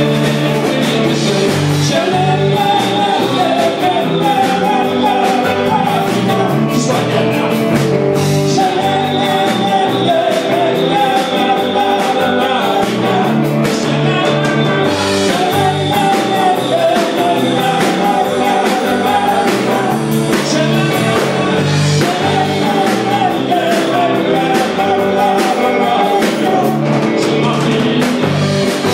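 Live rock band playing electric guitar, bass guitar and drum kit, loud and continuous. A wavering melody line comes and goes in phrases of a few seconds over the band.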